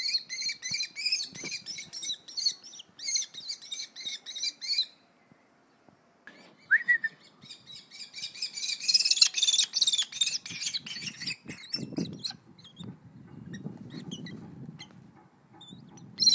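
Kestrel calling: fast runs of shrill, repeated notes, several a second. After a short break about five seconds in, a louder, denser run of calls comes about eight to ten seconds in.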